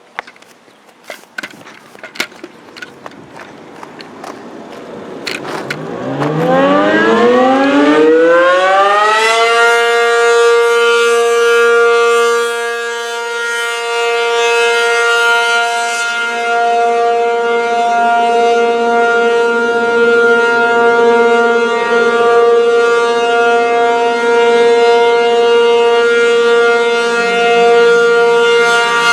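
ASC RM-135 rotating outdoor warning siren winding up, its pitch rising over about four seconds, then holding the steady Alert tone, which dips and swells in loudness as the head rotates. A few faint clicks come before the wind-up.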